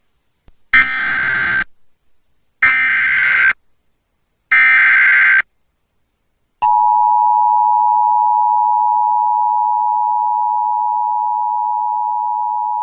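Emergency Alert System activation tones. First come three short bursts of SAME digital header data, each just under a second long with about a second between them. About six and a half seconds in, the steady two-tone EAS attention signal starts and holds. Together they mark the start of an alert broadcast, here a flash flood warning.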